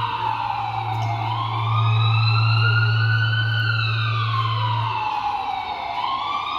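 Emergency-vehicle siren wailing, its pitch sweeping slowly down and back up about every four to five seconds. A steady low hum runs beneath it and stops about five seconds in.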